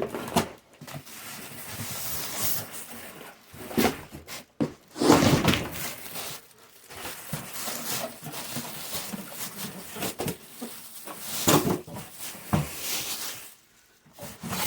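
Cardboard box and plastic packaging being pulled, torn and rustled in irregular bursts, with a few knocks, as a tightly packed heater is freed from its box.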